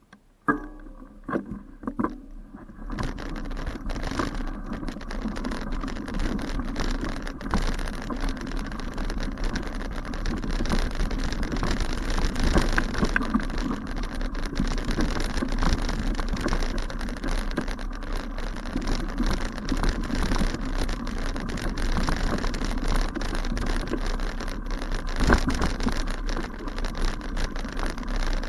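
A few scattered clicks, then from about three seconds in a steady rush of wind and tyre noise from a bicycle ridden along a rough grassy path, with frequent small knocks and rattles from the bumpy ground.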